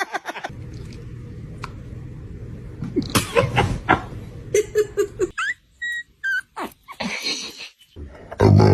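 Dogs yawning in a run of short clips, with short high-pitched squeaky yawn sounds, one rising in pitch, about two thirds of the way through. A loud, deep sound begins near the end.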